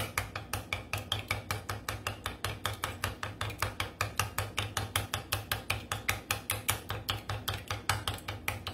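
Wooden chopsticks beating a raw egg in a small ceramic bowl, tapping the bowl in a quick steady rhythm of about four or five clicks a second.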